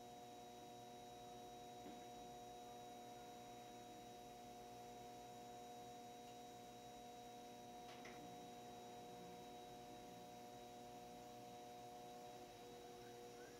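HONING H312 desktop CNC mill cutting a pocket in aluminum with a 3/8-inch three-flute carbide end mill at 5700 rpm: a faint, steady hum of several held tones. A single click about eight seconds in.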